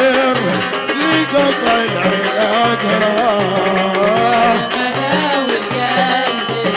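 Middle Eastern band music, an instrumental passage: a wavering, ornamented melody over repeating bass notes and hand-drum percussion.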